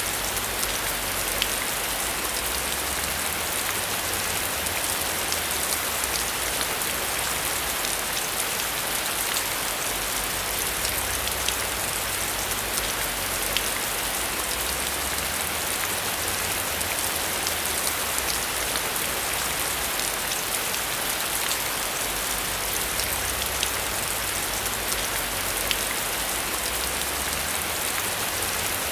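Steady heavy rain: a dense, even hiss with many sharp drop hits scattered through it.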